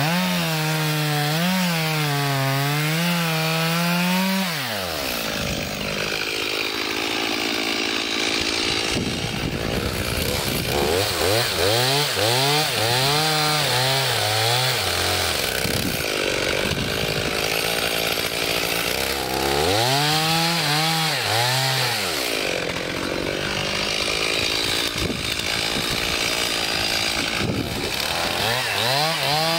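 Two-stroke chainsaw bucking a log, running at high revs with its pitch dipping and recovering over and over as the freshly filed chain bites into the wood. Several cutting spells alternate with quieter stretches.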